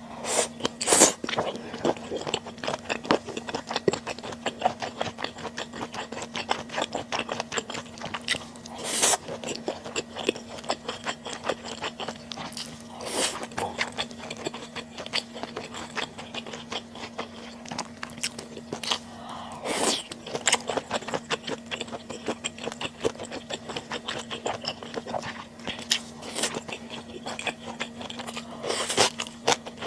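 Close-miked chewing and biting of stir-fried webfoot octopus: a steady run of wet clicks and smacks, with louder bites about a second in, around 9, 13 and 20 seconds, and near the end.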